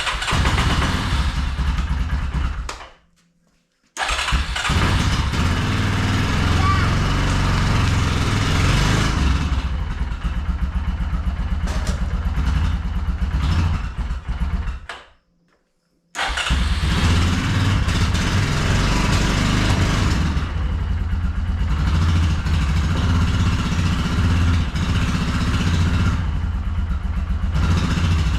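Yamaha Kodiak 450 ATV's single-cylinder four-stroke engine running after its gunked-up carburettor was cleaned, now starting and running. The sound drops out to near silence twice, about three seconds in and about fifteen seconds in.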